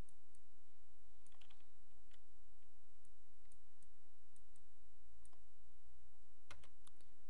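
Computer mouse clicking as curve points are placed one at a time: scattered single clicks, with a quick cluster of louder clicks near the end, over a steady faint electrical hum.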